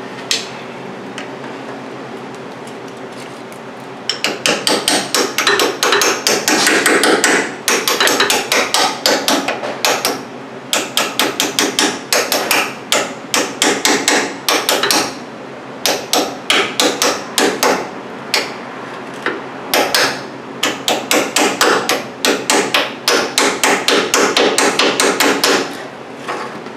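Hand ratchet clicking in quick back-and-forth strokes, in bursts with short pauses, as the bolt of the steering rack's mounting bracket is run down. It starts about four seconds in and stops just before the end.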